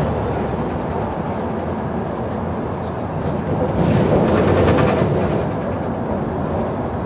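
Mercedes-Benz O345G articulated bus's diesel engine idling while the bus stands still, a steady low running noise that grows louder for about a second around four seconds in.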